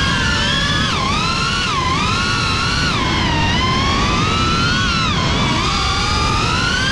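FPV quadcopter's brushless motors whining, the pitch rising and falling about once a second as the throttle changes through turns and dives, over a steady rush of wind noise.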